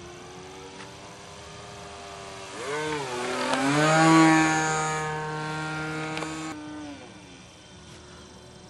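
Fuel-burning engine of an SU-31 radio-controlled aerobatic model plane flying past overhead. The engine note swells and swoops in pitch about three seconds in and is loudest about four seconds in. It holds a steady note, then drops in pitch and fades away near the end.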